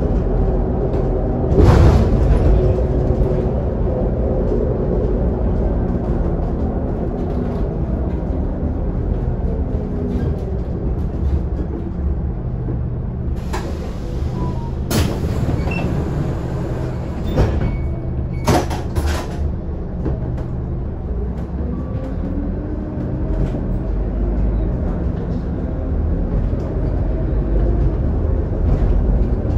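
Scania K280UD double-decker bus heard from inside the lower deck: its five-cylinder diesel engine running under way, the engine note falling and later rising again as the bus changes speed. Short rattles and knocks from the cabin fittings come about two seconds in and in a cluster about halfway through.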